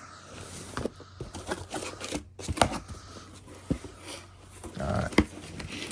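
Packaging being handled by hand during an unboxing: an irregular string of sharp clicks, taps and short scrapes of cardboard and plastic.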